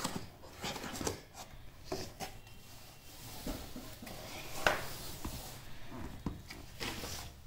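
Cardboard shipping carton being handled and a boxed tablet pulled out of it and set down: scattered rustles, scrapes and light knocks, the sharpest knock about two-thirds of the way in.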